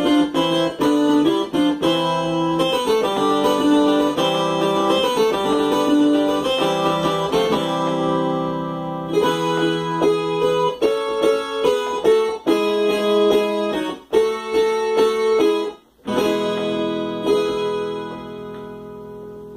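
Viola caipira sample played on a synthesizer keyboard: a brisk run of plucked-string notes and chords in a caipira style. After a short break it ends on a final chord that rings and fades out.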